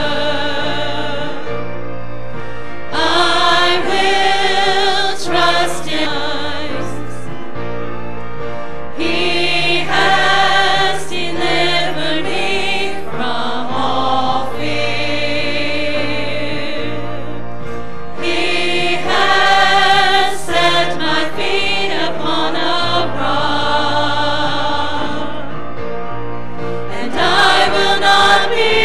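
Church choir and praise-team singers singing a hymn together, in phrases, over instrumental accompaniment that holds steady low bass notes.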